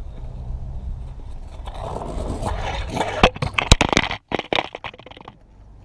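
Kick scooter wheels rolling and scraping over coarse asphalt close to the ground-level microphone, rising to a scraping rush about two seconds in. A quick run of sharp knocks and clatter follows as the camera on the ground is jostled and tilted.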